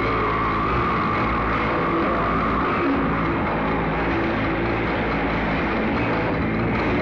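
Harsh noise music played from a cassette: a steady, dense wall of noise over a held mid-pitched tone, with low droning notes that shift in pitch every second or so underneath.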